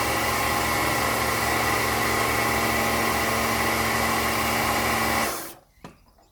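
Pressure washer running steadily, a motor hum under a hiss, then cutting off about five seconds in.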